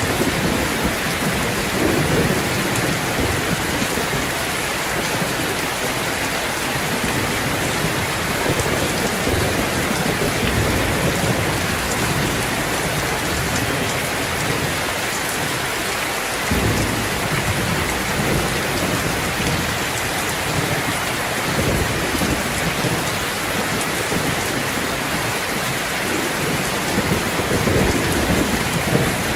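Steady, heavy rain falling, with low rumbles swelling and fading underneath.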